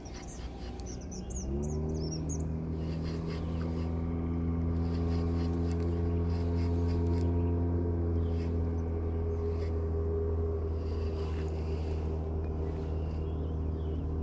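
A motor starts about a second and a half in, its pitch rising briefly and then holding steady as it runs. A bird chirps a quick run of notes just before.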